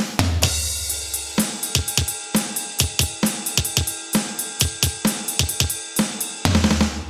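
Sampled acoustic drum kit from a virtual drum app being tapped: it opens on a bass drum and crash cymbal hit that rings on, then plays a steady beat of kick, snare and cymbal hits, and lands another bass drum and crash hit near the end.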